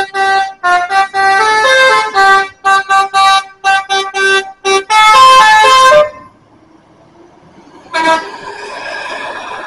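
Bus telolet horn, a multi-tone musical air horn, playing a rapid tune of short toots at several pitches for about six seconds. About eight seconds in, a second, fainter horn sounds and fades.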